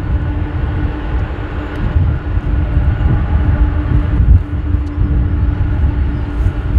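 Boeing 787-9 jet engines running at taxi power as the airliner rolls along the taxiway: a steady hum with a held tone over an unsteady low rumble.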